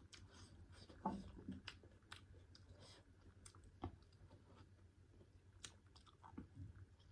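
Quiet, close-up chewing of pork curry and rice, with scattered wet mouth clicks and a slightly louder bite about a second in.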